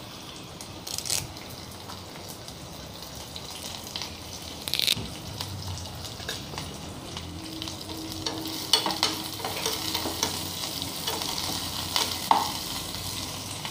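Tempering of mustard seeds, shallots and dried red chillies sizzling in hot oil in a small nonstick pan. About halfway through, with fresh curry leaves now in the oil, the sizzling grows louder and crackles, and a metal spoon taps and scrapes the pan a few times as it stirs.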